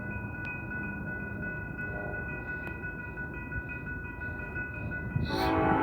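Approaching BNSF diesel coal train: a low rumble with faint steady high tones over it. Near the end the locomotive's horn starts to blow and grows louder.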